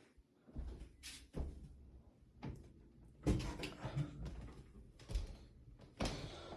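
A string of scattered knocks and thumps, like household handling, with the loudest thud about three seconds in.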